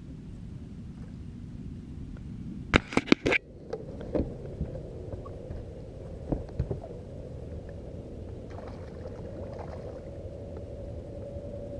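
Steady low rumble with a quick run of about five loud, sharp knocks about three seconds in, then a few lighter clicks and knocks.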